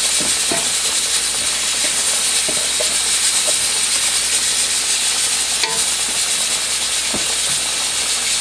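Uncooked rice poured from a bowl into a pot of softened mung beans simmering in liquid, with a few faint clicks, over a steady hiss.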